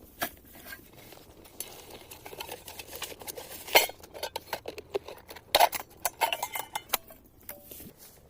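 Metal camp cookware and utensils being handled: irregular clinks and knocks, the loudest about four seconds in and again about five and a half seconds in.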